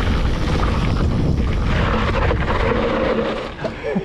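Steady loud rushing and rumbling of wind buffeting a GoPro's microphone, dropping away about three and a half seconds in.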